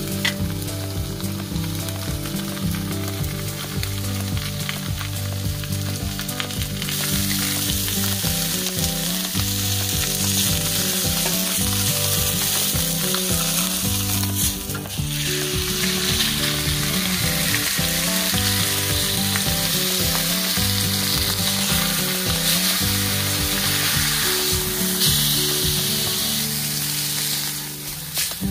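Meat sizzling and frying on a hot grill, the sizzle growing louder about a quarter of the way in, over background music.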